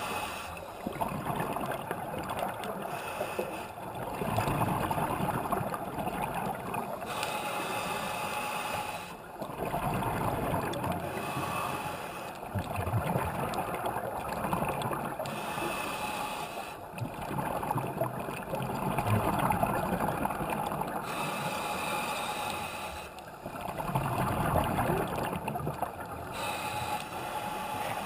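Scuba regulator breathing heard underwater: exhaled air bubbles gurgling in bursts, alternating with breaths drawn through the regulator, repeating every four to five seconds.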